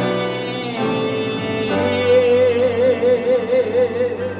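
A man's sung held note with a wide vibrato over sustained grand piano chords and a low bass note: the closing note of a gospel song, fading near the end.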